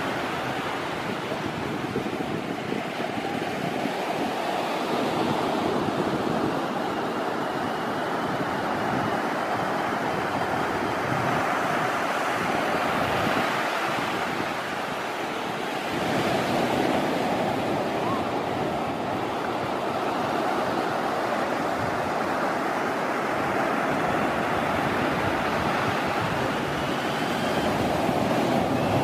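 Steady wash of sea surf with wind buffeting the microphone. A faint high whine of the RC car's small electric motor rises briefly a couple of times.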